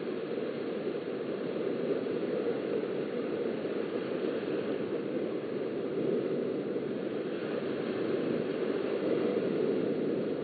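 Small waves washing onto a sandy beach, heard through a webcam microphone as a steady rushing noise that swells and eases slowly.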